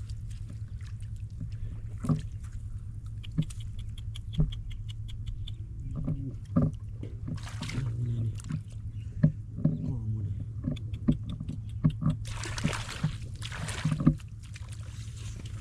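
Water splashing and sloshing, with scattered knocks and clicks and a short run of quick ticks, over a steady low hum.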